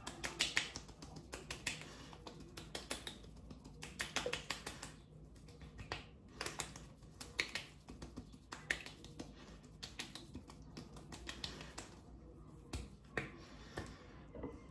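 Palms patting and slapping aftershave splash onto freshly shaved, wet cheeks: quick runs of sharp slaps with short pauses between them.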